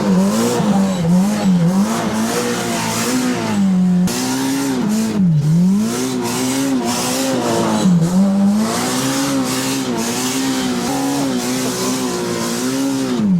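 Side-by-side UTV engine revving hard, its pitch rising and falling over and over as the throttle is worked through deep snow, with a rushing hiss over it.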